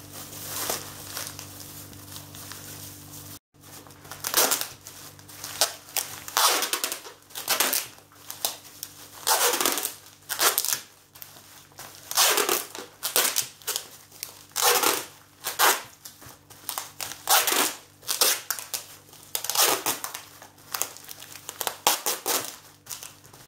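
Packing tape being pulled off the roll in repeated short rasps, about one a second, and wound tightly round a plastic bag of food that crinkles as it is handled.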